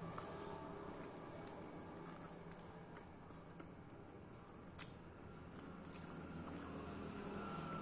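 Close-miked chewing of fried rice-stuffed mussel (kallumakkaya): soft, wet mouth sounds, with a few sharp clicks, the loudest about five seconds in.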